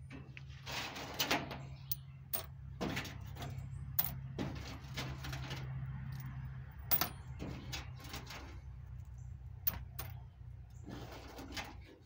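Loose coins clinking on the metal of a dismantled clothes dryer as they are picked out of the lint and dropped onto a pile of change: a dozen or so irregular, sharp metallic clinks.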